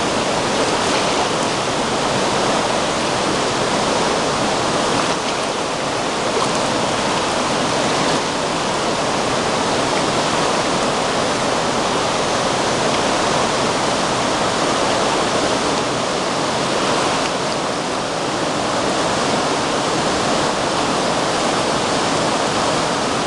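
Flood-swollen river rushing and churning in a steady, loud wash of turbulent whitewater, the river high after hours of tropical-storm rain.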